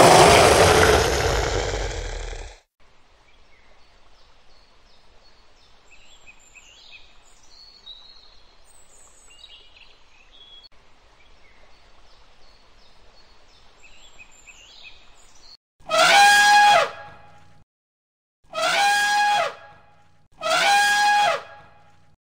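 An elephant trumpeting three times near the end, each blast about a second and a half long with a slightly falling pitch. Before that, faint bird chirps over a quiet outdoor background, and at the very start a loud rushing noise lasting about two and a half seconds.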